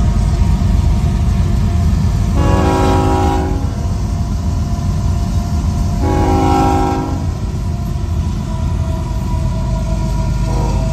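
Union Pacific diesel locomotive horn sounding two long chord blasts about four seconds apart, then a shorter, fainter one near the end, over a steady low rumble.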